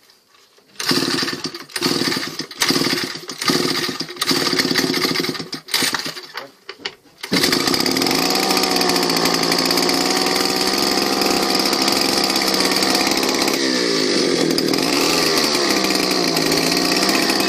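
Druzhba chainsaw's two-stroke single-cylinder engine on a homemade moped being pull-started: several uneven sputtering bursts as it is cranked. About seven seconds in it catches and runs steadily, with its revs dipping and rising a few times near the end.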